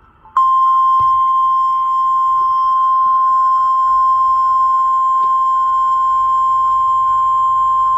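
NOAA Weather Radio 1050 Hz warning alarm tone: one loud, steady high tone that starts about half a second in and holds unchanged. It signals that a warning message follows.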